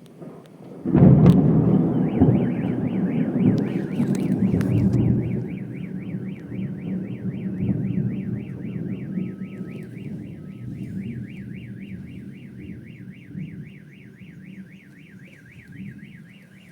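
A close thunderclap about a second in, its low rumble fading over the following seconds, and a car alarm set off just after it, sounding a rapid warbling siren that keeps going.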